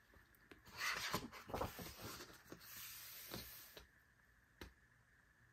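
Pages of a thick photobook being turned and smoothed flat by hand: paper rustling and sliding from about a second in until nearly four seconds, then one soft tap.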